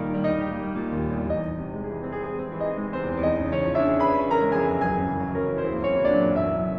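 Concert grand piano played solo in a classical recital: a continuous passage of many overlapping sustained notes and chords.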